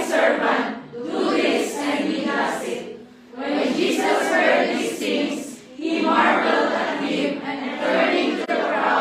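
Congregation reading a Bible passage aloud in unison: many voices speaking together in phrases, pausing briefly twice.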